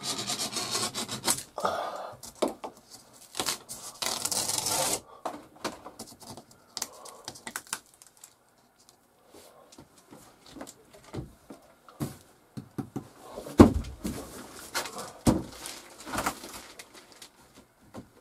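Rasping scrape and tearing of water-soaked ceiling paneling being worked loose by hand from the glued-on styrofoam insulation for the first few seconds, then scattered wooden knocks and taps with two heavier thumps in the second half.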